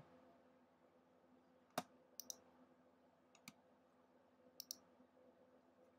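A few short, sharp computer mouse clicks, some in quick pairs, spread over near silence; the first is the loudest.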